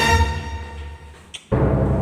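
Orchestral background music with timpani that dies away, then a short click and a different piece cutting in suddenly near the end.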